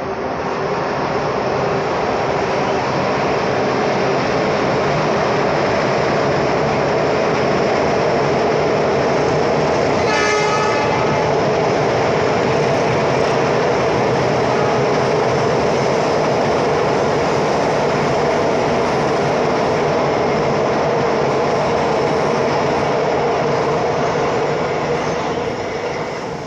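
A train passing close by: a loud, steady rumble of wheels on the rails that swells in at the start and fades near the end, with a short horn blast about ten seconds in.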